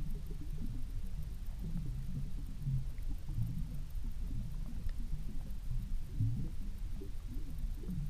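Muffled underwater rumble picked up by a camera in a waterproof housing on the canal bed, with short low hums and faint ticks coming irregularly.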